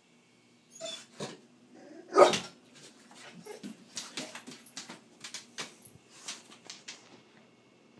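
Pit bull-type dog, wary of a plastic owl decoy, gives one loud bark about two seconds in amid softer short vocal noises. Its claws then tick rapidly on the vinyl floor as it paces around.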